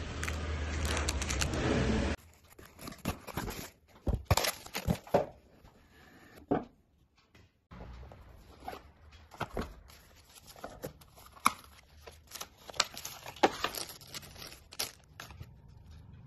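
Smartphone packaging being handled: plastic wrap crinkling over a loud steady rumble for the first two seconds, which cuts off abruptly. Then scattered sharp taps, clicks and short scrapes and rustles as the cardboard box lid is lifted and a clear plastic phone case is taken out.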